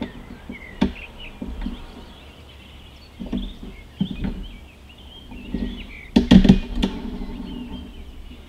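Small birds chirping faintly outdoors, with a series of knocks, clicks and rubbing from the camcorder being handled close to the mic. The loudest is a quick cluster of sharp clicks about six seconds in.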